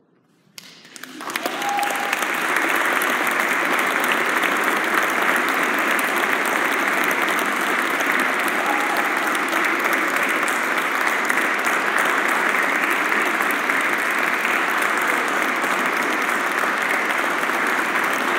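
Audience applause, joined by the choir clapping: near silence at first, then clapping starts about half a second in, swells over the next second or so and holds steady.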